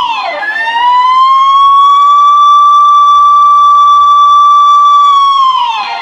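Police car siren wailing loudly: a long held high tone that drops quickly and sweeps back up, once just after the start and again at the end.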